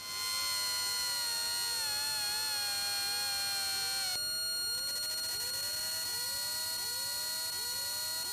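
Piper Arrow's electric hydraulic landing-gear pump running as the gear retracts after takeoff: a whine that slowly falls in pitch and cuts off about four seconds in. Over steady electrical whine, a short rising chirp repeats a little under twice a second.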